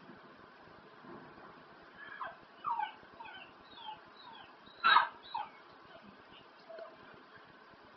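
A dog howling in a run of short whining calls that fall in pitch, the loudest about five seconds in.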